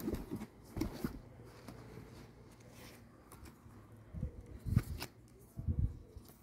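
Handling noise from a cardboard shoebox and a pair of sneakers being lifted and turned over by hand: irregular rustling with several soft, low thumps, the loudest a little past the middle and again near the end.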